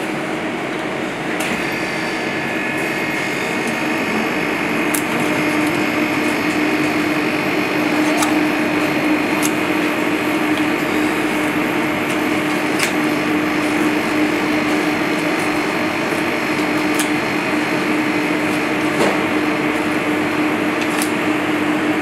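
Steady mechanical hum of commercial kitchen ventilation, with a constant low drone that grows a little louder a few seconds in. A few faint sharp clicks from a knife working along fish bones come through it.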